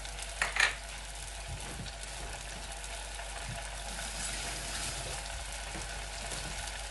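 Melted butter sizzling steadily in a pot as it cooks down into ghee, with millet grains just added. A short clatter sounds about half a second in.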